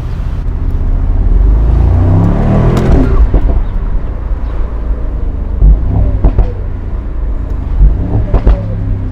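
A car passing by, its engine note rising and falling about two to three seconds in, over a steady low rumble, with a few short knocks later on.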